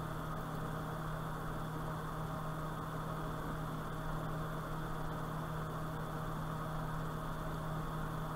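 Steady low electrical hum with a constant hiss: unchanging background noise.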